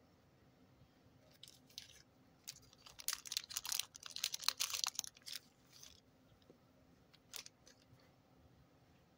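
Small clear plastic zip bag crinkling as it is handled and opened, a dense run of crackles in the middle, with a few light clicks before and after.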